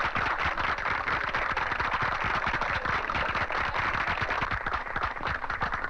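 A crowd applauding: dense, steady clapping.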